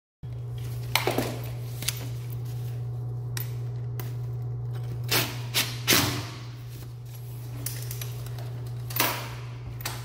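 Cordless DeWalt drill-driver run in several short bursts, driving screws into a floor dome door stop on a tile floor, with sharp clicks between bursts: about a second in, around five to six seconds, and near nine seconds. A steady low hum sits underneath.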